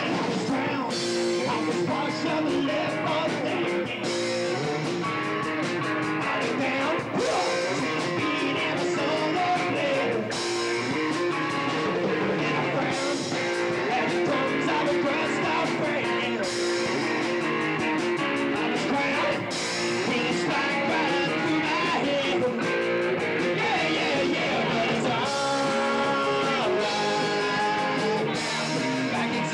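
Live rock band playing: bass guitar and guitar, with a singer on a hand-held microphone.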